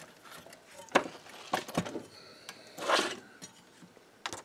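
Small clinks and knocks of metal parts and hand tools being handled during disassembly, with a short scraping rustle about three seconds in. The sharpest knock comes about a second in.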